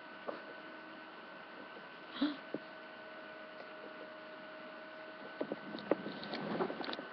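Steady electrical hum and whine with faint scattered clicks and knocks, a short rustle near the end.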